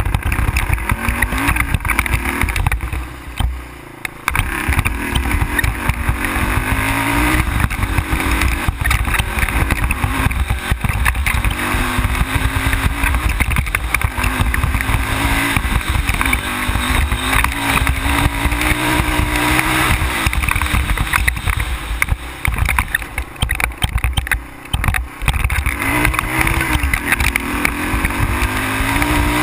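ATV engine running under load on a dirt trail, its pitch rising and falling again and again as the rider works the throttle, over a heavy low rumble with jolts from the rough ground.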